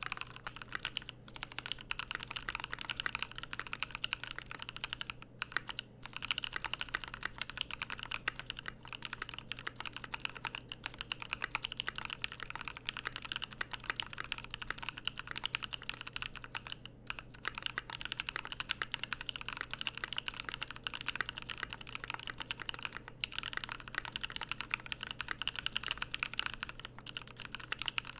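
Steady, fast typing on a mechanical keyboard with lubed NovelKeys Cream linear switches and PBT keycaps on an aluminium plate, with a few brief pauses between runs of keystrokes.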